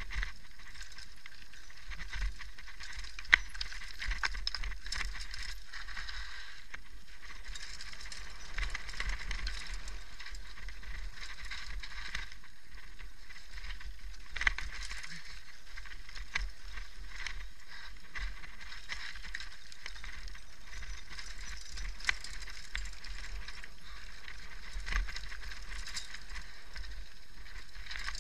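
Mountain bike rolling down a rocky dirt trail: steady tyre-on-gravel noise with the bike rattling, and scattered sharp knocks as it hits stones, the loudest about three seconds in.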